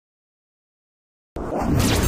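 Silence, then about a second and a half in a sudden loud burst of harsh, full-range noise: a logo sound effect that matches the glitching logo animation.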